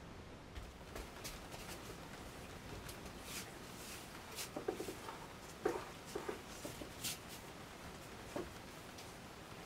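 Hands working upholstery fabric and foam over a chair seat: scattered rustles, scrapes and light ticks, busiest in the middle with one sharper tick.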